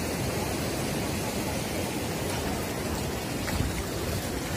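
Steady rushing of a fast mountain river flowing over boulders.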